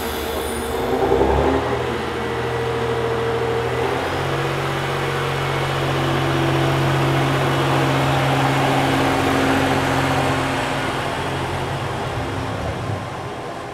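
JR Hokkaido H100 diesel-electric railcar moving off, its diesel engine running with a steady hum that swells a little and then fades near the end.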